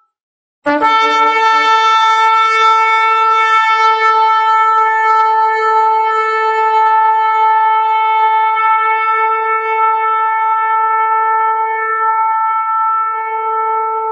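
Shofar (ram's-horn trumpet) sounding one long held blast at a steady pitch. It starts sharply just under a second in and carries on to the end.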